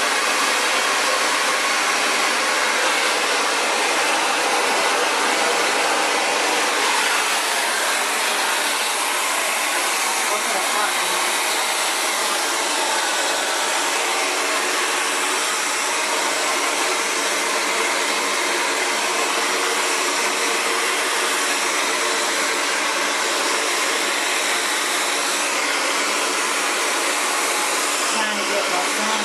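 Xtava Allure 2200-watt ionic ceramic hair dryer running steadily, a loud, even rush of blowing air with a faint motor hum, as it blows out natural curly hair.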